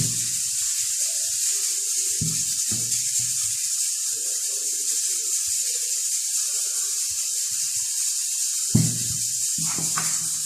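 Steady high hiss, with a few soft thumps and rustles from hands working a soft, slack croissant dough; the loudest thump comes near the end.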